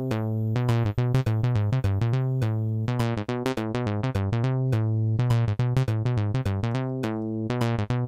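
A synthesizer lead sequence from the StepDesigner step sequencer playing through HALion 7: a fast run of short notes stepping up and down in pitch, over a steady low tone, with swing added so that the steps fall unevenly.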